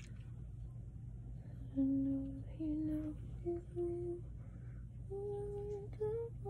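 A woman humming a slow tune without words, in held notes that step upward in pitch, starting a couple of seconds in. A low steady hum runs underneath.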